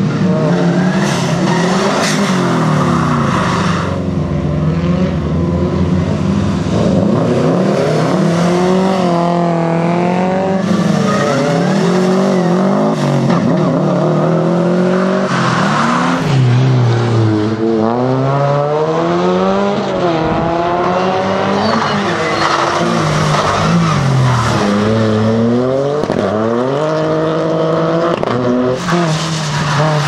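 Rally car engines driven hard, revving up and dropping back again and again through gear changes and braking, with tyre squeal and skidding on the wet tarmac at times.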